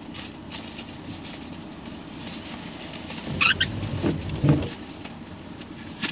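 Papers and documents being rustled and shuffled by hand inside a car, in a string of scratchy rustles and small clicks over the low steady hum of the vehicle.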